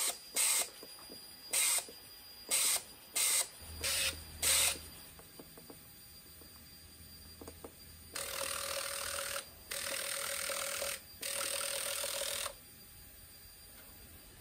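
Decapped fuel injectors on a pressurised fuel rail fired by a pulse tester. First come about seven short spray bursts, then about eight seconds in three longer bursts of over a second each with a buzzing tone. Each injector opens and shuts off cleanly, with none stuck open or dripping.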